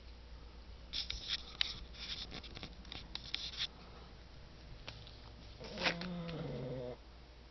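Sleeping dog snoring: one drawn-out, pitched snore about six seconds in that falls in pitch and stops abruptly. Before it come a few seconds of soft clicking and scratching.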